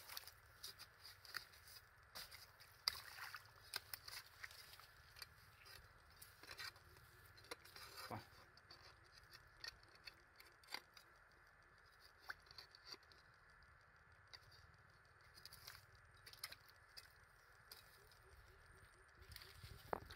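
Faint, irregular clicks and scrapes of a wooden stick probing a mud crab burrow in wet mud and mangrove roots.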